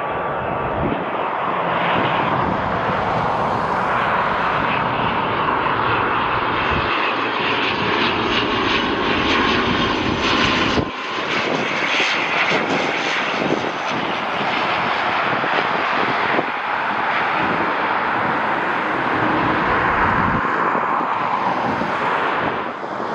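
Fixed-wing aircraft's engines close by, a loud, steady noise that dips briefly about eleven seconds in.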